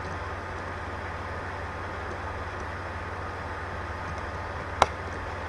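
Steady low hum and hiss, with one sharp click near the end.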